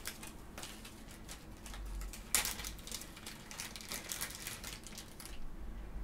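Small craft supplies being handled and sorted: a run of light clicks and rustles, with one sharper click about two and a half seconds in, stopping about a second before the end.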